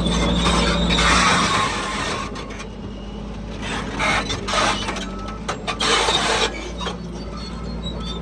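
Heavy earthmoving machinery at work: a diesel engine running steadily, louder for the first second and then easing off, with several short bursts of scraping and squealing noise in the middle.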